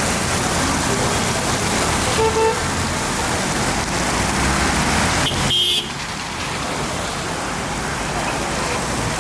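Heavy rain pouring steadily over street traffic, with a short car-horn toot about two seconds in; the sound drops abruptly to a slightly quieter rain about halfway through.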